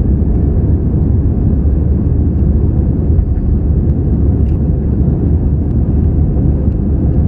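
Airbus A320's CFM56 jet engines at high takeoff-climb thrust, heard inside the cabin as a steady, loud, low rumble with rushing air noise.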